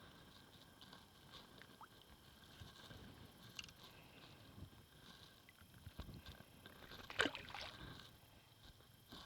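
Faint sloshing and small splashes of pond water around a wading angler, with a louder splash about seven seconds in.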